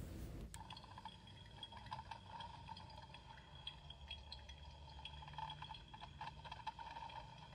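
My Life As doll-sized toy drip coffee maker playing its electronic coffee-making noises, set off by the button on its front. The sound is faint and starts about half a second in, with faint irregular ticks over a steady hum.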